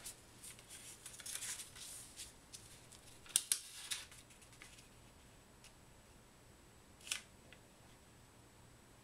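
A sheet of origami paper being handled, folded and creased by hand: light rustling at first, then crisp crackles as the folds are made, loudest about three and a half to four seconds in, and one more short crinkle about seven seconds in.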